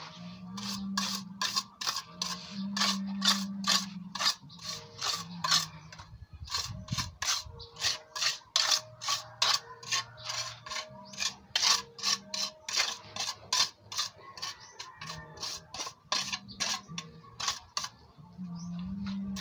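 Steel trowel scraping wet sand-and-cement mix across the top of a metal concrete hollow-block mould, striking off and smoothing the fill. The short, rasping strokes come quickly, about two or three a second.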